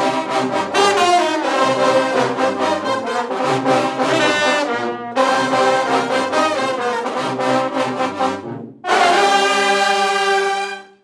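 A Junkanoo brass section playing a tune, then holding one long chord near the end that cuts off.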